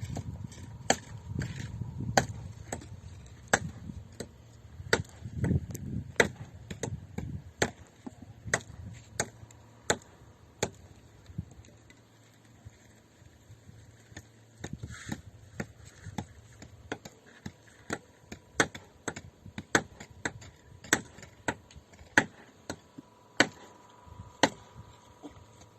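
A long run of sharp, irregular knocks or clacks, about one or two a second. A low rumble sits under them for the first several seconds.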